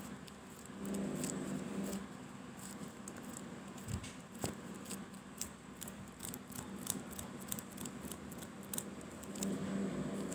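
Scattered light clicks and scratchy ticks, several a second, over a faint low hum that swells about a second in and again near the end.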